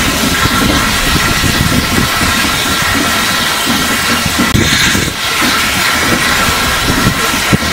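Steam rotary snowplough at work on the track, the Rhaetian Railway's Xrot 9213: a loud, steady hiss of steam over the rumble of the train.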